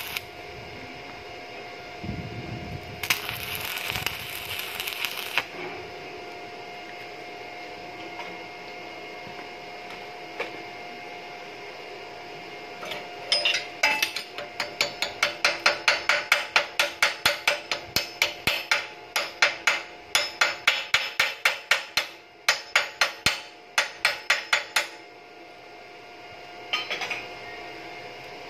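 Electric arc welding crackle at the start, then a long run of rapid hammer strikes, about three a second, on the fresh weld bead of a steel pipe lying on a steel block.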